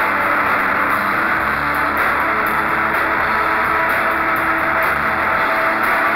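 A shoegaze rock band playing live in a practice room: a dense wash of electric guitar over electric bass and drums with cymbals. A low bass note is held from about a second and a half in until near the end.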